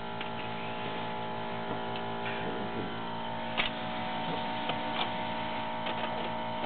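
Steady electrical hum made of several even tones, with a few faint light clicks in the second half.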